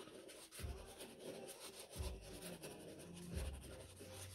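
A lump of natural clay is rubbed back and forth over damp sketchbook paper, making a faint scratchy scraping in repeated strokes. A few dull bumps come through the table as it is worked.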